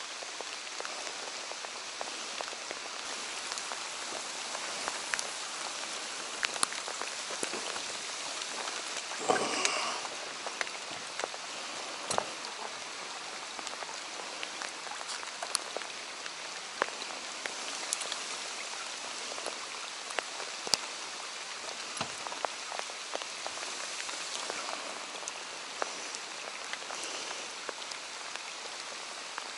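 Steady rain falling on the lake surface, with frequent sharp ticks of nearby drops striking, and a brief louder noise a little over nine seconds in.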